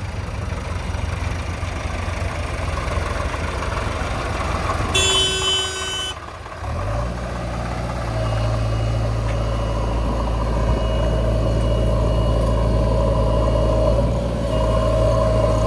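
Diesel engine of heavy earthmoving machinery running steadily, with a brief high-pitched tone about five seconds in; the engine note dips briefly just after and then comes back stronger.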